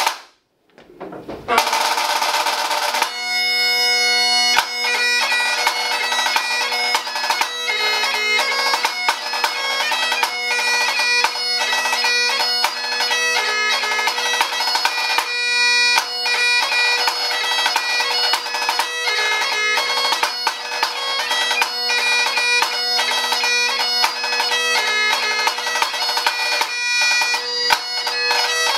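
Great Highland bagpipe playing a hornpipe over its steady drones, with a pipe-band snare drum beating the rhythm. The pipes strike in a second or so in, and the tune and drumming start about three seconds in.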